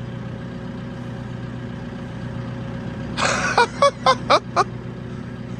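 Telehandler engine idling with a steady low hum. About three seconds in, a few quick short voice sounds, like a laugh, cut across it.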